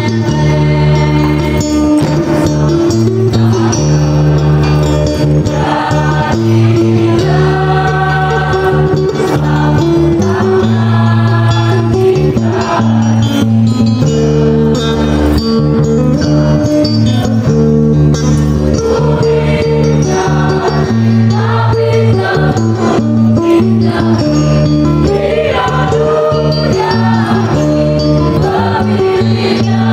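A mixed choir of teenage students singing together over an instrumental backing with a steady low bass and a jingling percussion.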